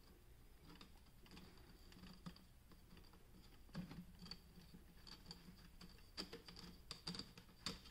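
Faint clicks, taps and light scraping of 3D-printed plastic rings knocking and rubbing together as they are fitted by hand, in irregular clusters, more of them about halfway through and near the end.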